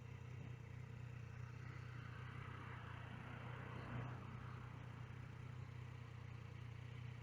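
Yamaha XSR900's inline-triple engine running steadily and faintly, a low even hum with no revving.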